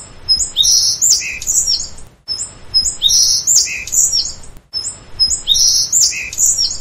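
A songbird singing a short phrase of high chirps and whistles, the same recording looped three times, about every two and a half seconds.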